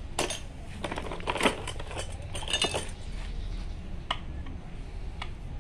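Metal tool clinking and tapping on a motorcycle's front disc-brake caliper as it is being taken apart: a run of irregular light clinks through the first few seconds, then single taps about four seconds in and near the end.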